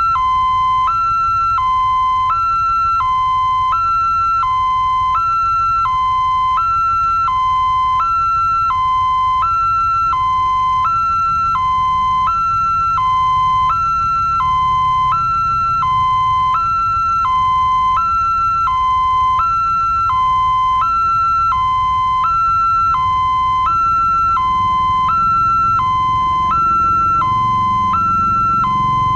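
Electronic level-crossing warning alarm sounding a steady two-tone signal, a higher and a lower tone alternating evenly, each held for under a second: the warning that the barrier is down and a train is coming. A low rumble builds beneath it near the end.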